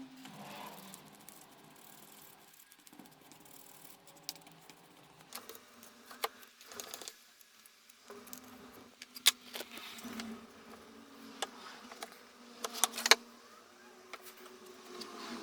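Scattered light clicks, taps and knocks of parts and tools being handled and set down on a workbench, with a few sharper knocks about nine and thirteen seconds in.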